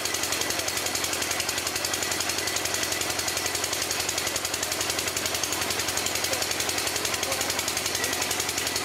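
Water-well drilling machine running with a rapid, steady hammering pulse of many strokes a second.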